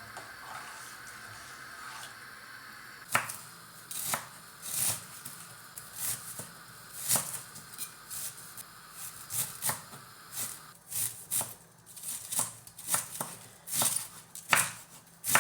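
Knife chopping on a cutting board in slow, irregular strokes, about one to two a second, starting about three seconds in.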